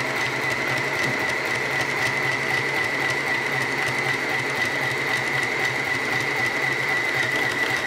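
Easymaxx compact sewing machine running steadily on battery power at its higher speed setting, stitching through denim, with a constant high-pitched whine.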